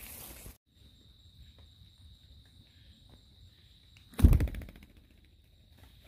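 A faint, steady, high insect trill, broken about four seconds in by one loud, short, low thump.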